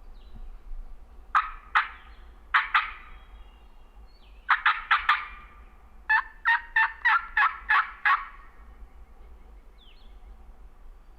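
Hen turkey calls on a diaphragm mouth call: sharp, clucking cutts in pairs and a short cluster, then a run of seven evenly spaced yelps. It is calling meant to make a gobbler gobble back.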